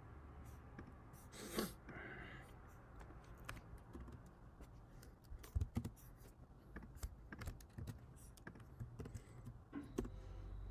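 Faint, irregular key presses and clicks on a computer keyboard, with a short louder noise about one and a half seconds in.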